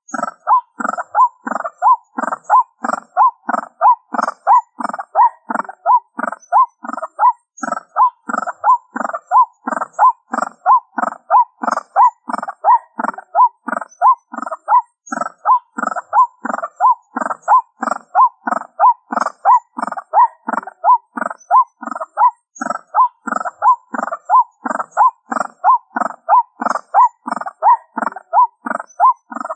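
White-breasted waterhen's 'ruak-ruak' call, repeated in an unbroken, very evenly spaced series of about two calls a second, played as a lure recording through a small speaker.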